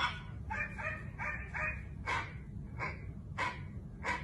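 A dog giving a string of short barks or yips, about two a second.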